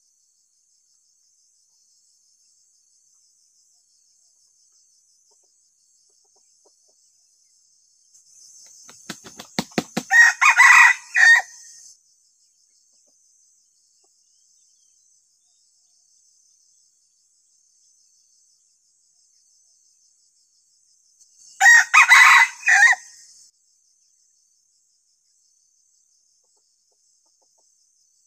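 Decoy (ayam pikat) junglefowl rooster crowing twice, about eleven seconds apart, each crow short, about two seconds. The first crow follows a quick, speeding-up run of wing flaps.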